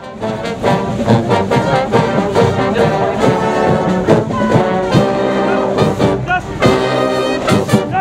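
Marching band playing a tune, its brass section of sousaphones, trumpets and trombones carrying the melody over regular sharp hits; it starts suddenly at the beginning.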